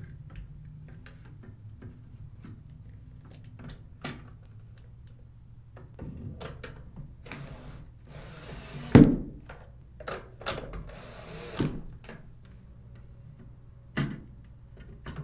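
Plastic side plates being fitted onto a MotorGuide trolling motor's mount by hand: scattered clicks and knocks with a couple of short scrapes, the loudest a sharp knock about nine seconds in.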